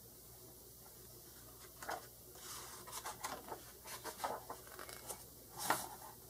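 A picture book's paper page being turned by hand: a run of soft rustles as it is lifted and slid over, ending in a louder brief swish as it settles near the end.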